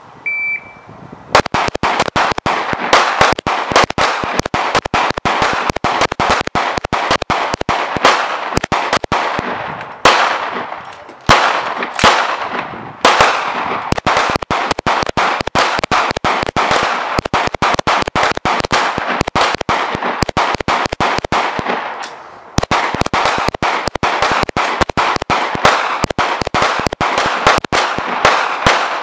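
A short high beep, then rapid handgun fire, many shots a second overlapping, with only brief pauses.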